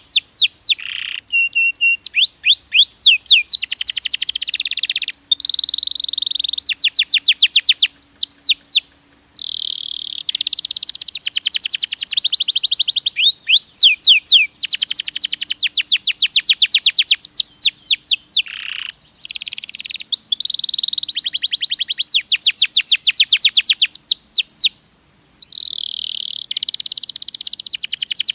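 Domestic canary singing: fast trills of rapidly repeated sweeping notes, one phrase after another, each run lasting a second or two with brief breaks between.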